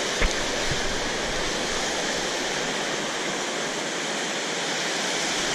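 Steady rush of fast-flowing floodwater pouring through a river weir, with one short sharp knock just after the start.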